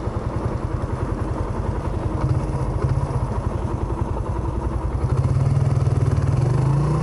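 Suzuki GN125H's single-cylinder four-stroke engine idling with a steady low thumping, growing louder about five seconds in.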